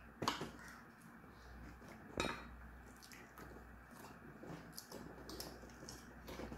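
Light clicks and clinks of children's spoons against plastic divided plates, a few scattered taps with the clearest one about two seconds in, over a low hum.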